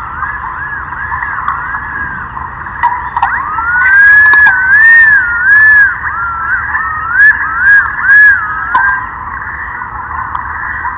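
Thick-billed green pigeons calling: overlapping wavering whistles that rise and fall in pitch, with one louder bird giving a run of looping whistled notes from about four to nine seconds in.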